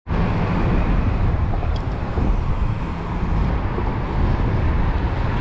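Wind buffeting the microphone: a steady, loud, flickering rumble.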